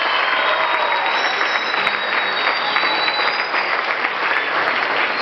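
Large audience applauding steadily, dense clapping throughout.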